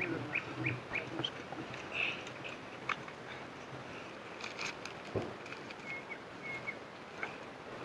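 Small birds chirping in short, high calls amid scattered clicks and rustling of gear being handled as a medical kit is opened.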